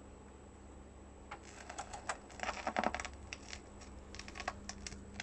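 Irregular clicks and pops from a Panasonic SL-J7 automatic turntable as its tonearm sets the stylus down onto the record and it tracks the lead-in groove before the music. The clicks start about a second in and are thickest around the middle.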